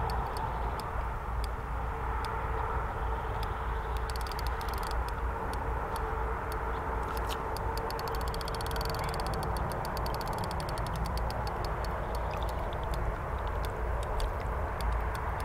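Irregular short clicks, in clusters, over a steady low rumble of outdoor background.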